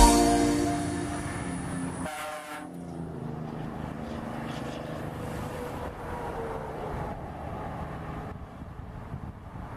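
The last chord of a song fades out over about the first two seconds, leaving steady highway traffic noise of trucks and cars going by.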